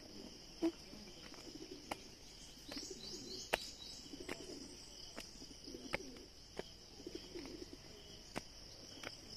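A dove cooing in repeated low phrases over a steady high-pitched insect drone, with a few sharp clicks scattered through.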